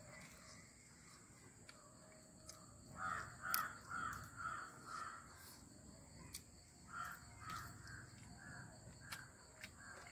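Faint animal calls: two runs of about five short, harsh calls each, the first about three seconds in and the second about seven seconds in, with scattered faint clicks between.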